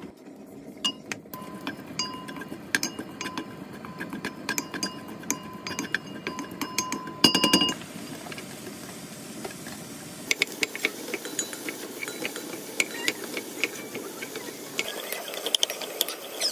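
A wooden spoon stirring and tapping against a stainless steel pan as vegetables stir-fry in oil. About seven seconds in there is a loud clatter as a bowl of chopped vegetables is tipped into the pan, then the stirring and tapping go on.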